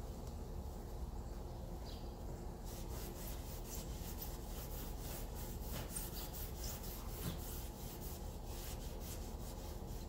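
Abrasive restoration pad rubbed briskly back and forth by hand over a plastic Nissan headlight lens, a scratchy scrubbing of about three strokes a second that starts a few seconds in. The pad is scraping the oxidised haze off the lens, the first step of the restoration.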